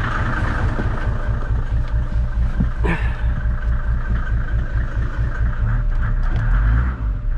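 Truck engine running as the truck is moved forward a little, a steady low rumble with a short knock about three seconds in.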